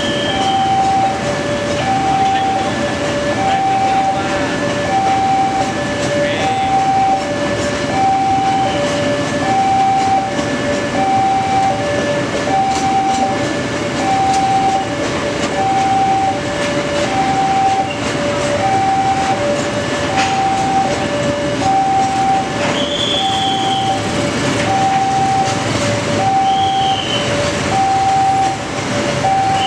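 Railway level-crossing alarm sounding a steady electronic two-tone signal, a higher and a lower tone alternating about every second and a half, while a tanker freight train rolls past with a steady rumble and wheel clicks over the rail joints.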